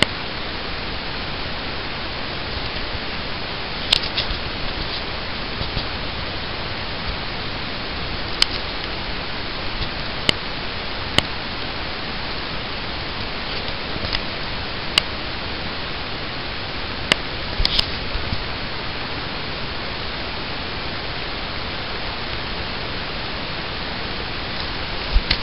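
A steady, even hiss, with several sharp clicks scattered through it.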